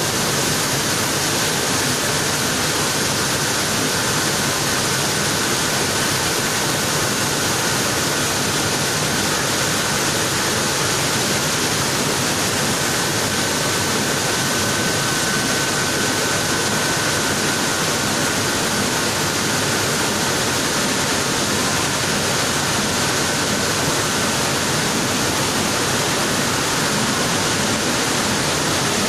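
Wheat flour mill machinery running: a steady, dense noise, with a faint high whine through most of it.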